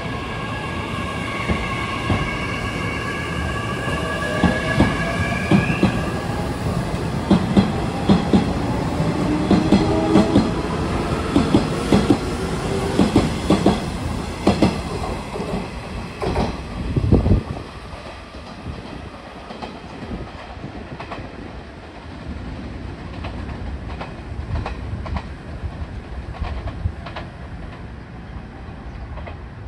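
A Nishitetsu 7000 and 6050 series six-car electric train pulls away, its motor whine rising in pitch as it gathers speed. Its wheels clatter over rail joints as the cars pass, then the sound drops to a fading rumble as the train draws away, a little over halfway through.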